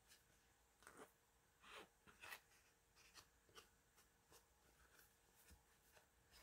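Near silence, with faint, scattered rustles and ticks as a piece of tightly woven fabric is handled and threads are pulled from its edge.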